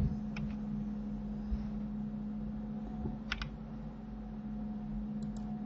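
A few computer keyboard key clicks, one early, a quick pair in the middle and a couple near the end, over a steady low hum.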